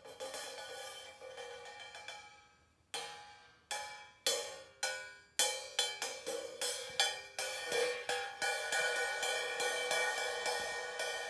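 Cymbal lying flat on a rug, struck repeatedly. A ringing tone fades over the first two or three seconds, then a run of strikes begins, each one ringing out, coming faster until they merge into a continuous shimmering ring near the end.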